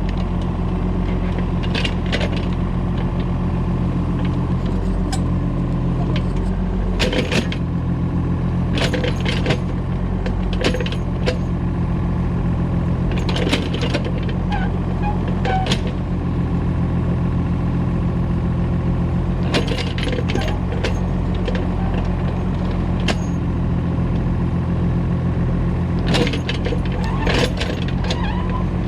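Kobelco excavator loading soil into a small farm truck: a diesel engine runs steadily while sharp metallic clanks and knocks come every few seconds, in clusters, as the bucket works.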